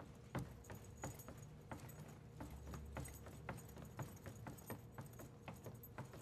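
Metal lamellar armour clinking and jingling with footsteps as armoured soldiers walk: a faint run of irregular clicks, several a second.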